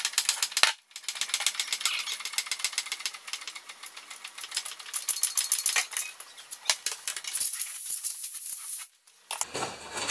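Hydraulic scissor lift table being pumped up under the weight of a pressure washer, giving a fast, even clicking rattle with short breaks about a second in and near the end.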